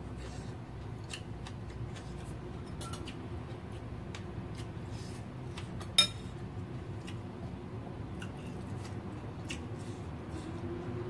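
A metal spoon strikes a ceramic bowl once about six seconds in, a sharp clink with a short ring. Around it are small soft clicks of eating rice by hand and chewing, over a steady low hum.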